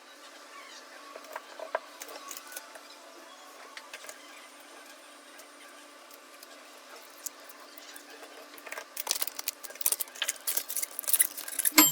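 Small clicks and taps of a smartphone and a tempered-glass screen protector being handled and fitted, scattered at first and then a quick, louder run of sharp clicks and taps over the last few seconds.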